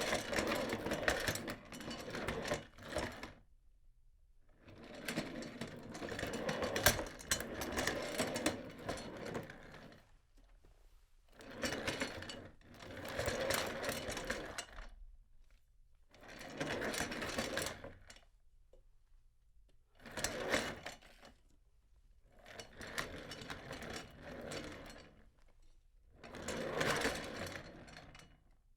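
Rolling office chair's casters rattling across the floor, heard at medium distance, in a series of separate rolls that each last from about one to five seconds, with short pauses between them.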